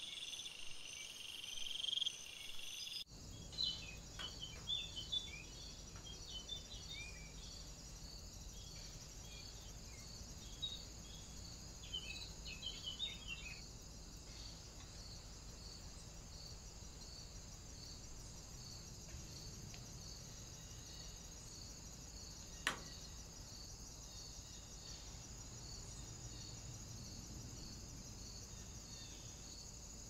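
Faint woodland ambience of insects chirping, with a steady, evenly pulsing high chirring throughout. Small birds make short chirps through the first half. The background changes abruptly about three seconds in, and a single sharp click comes about 23 seconds in.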